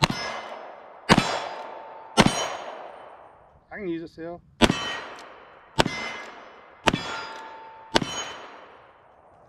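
A Kimber K6s Target 4-inch revolver fired seven times with semi-wadcutter hollow-point rounds, about a second apart: three shots, a short pause, then four more. A brief metallic ring hangs after several of the shots.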